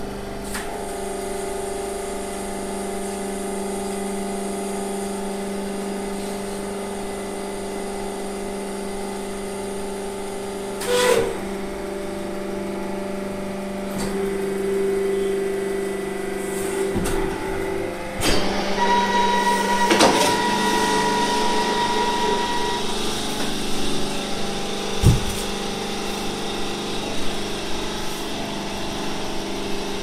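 Hydraulic waste-paper baling press running: its electric motor and hydraulic pump give a steady hum, broken by a few sharp metal knocks, with a higher whine joining for a few seconds past the middle.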